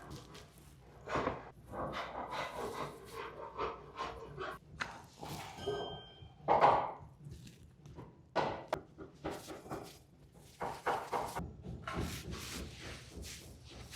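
A series of irregular knocks and thuds, the loudest about six and a half seconds in.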